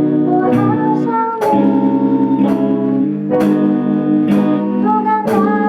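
A cappella group singing a slow ballad intro in close harmony on held chords, over a vocal-percussion beat about once a second.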